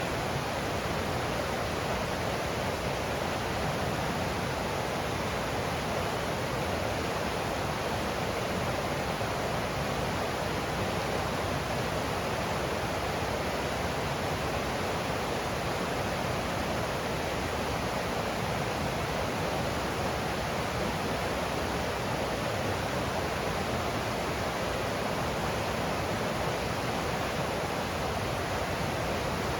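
Creek water rushing over rocks in a steady, even rush of flowing water.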